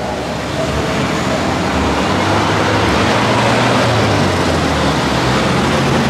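Large motorcycle engines running, a loud, steady engine noise with a low drone underneath.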